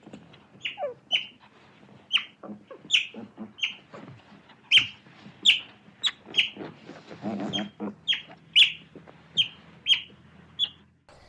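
An animal giving a series of short, sharp, high calls, each falling in pitch, about one or two a second, with a lower, drawn-out call about seven seconds in.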